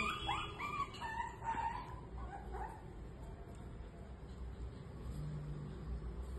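Shih Tzu puppies yipping and whining for food: a quick run of short, high calls in the first two to three seconds, then only faint ones.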